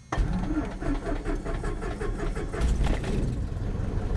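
Cessna 172's piston engine starting: an even chugging of about six beats a second, like the starter turning the propeller over, that fills out into a steady low running sound about two and a half seconds in.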